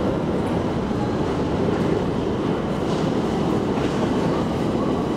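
KONE traction elevator car travelling in its shaft: a steady rumble, with a few faint ticks about three to four seconds in.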